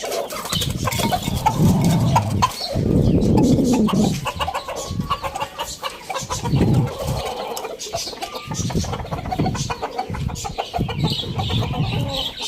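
Chickens clucking, with several louder low-pitched swells, the biggest in the first four seconds.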